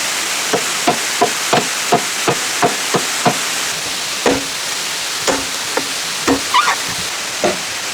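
A hand tool striking wood in quick, regular blows, about three a second, then slower and more irregular blows from about four seconds in, over a steady hiss.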